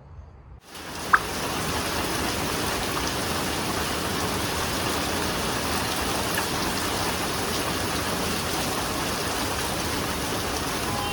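Heavy rain falling during a thunderstorm: a steady, even hiss that begins abruptly about half a second in, with a single sharp tick about a second in.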